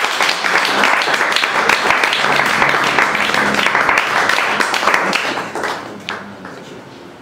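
Audience applauding, a dense run of many hands clapping that dies away over about the last two seconds.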